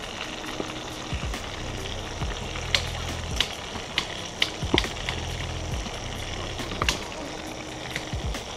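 A trout frying in oil in a small steel pan on a camping gas stove: a steady sizzle with sharp pops and clicks several times, as oil is spooned over the fish.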